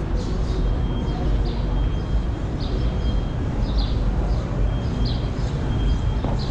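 Outdoor ambience: a steady low rumble with short, high chirps of small birds repeating every second or so.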